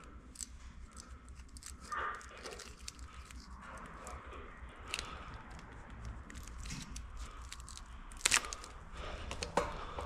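Hands working on an engine wiring harness: scattered small clicks, crackles and rustling of wires and plastic, with a sharper snap about eight seconds in and another near the end.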